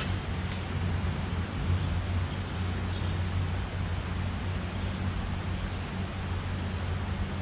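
Steady low rumble with a hiss over it, the drone of road traffic on the bridge overhead.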